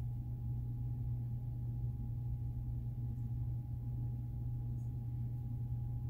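A steady low hum with a faint, thin, higher tone held above it, unchanging throughout.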